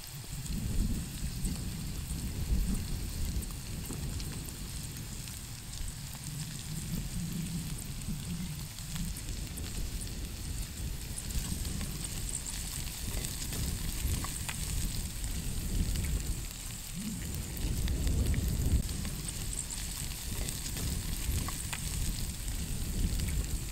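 Sliced sausage and vegetables sizzling in a frying pan as they are stirred and turned with a spatula: a steady crackling hiss. Underneath, a low rumble comes and goes.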